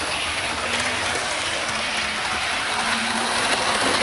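Hornby OO gauge Class 395 Javelin model train running at speed: the steady running noise of its motor and its wheels on the track, with a faint steady hum.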